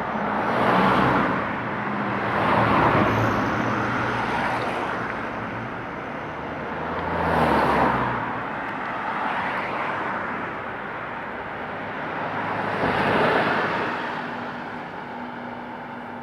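Street traffic: cars passing by one after another, four swelling and fading about a second in, near three seconds, after seven seconds and around thirteen seconds, with low engine hum between passes.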